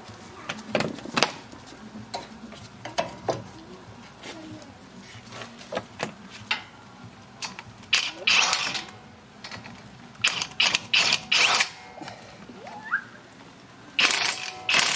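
Hand tools and metal parts at work on a car's wheel hub and brake: scattered metal clinks and knocks, with short bursts of ratchet clicking around the middle and again near the end.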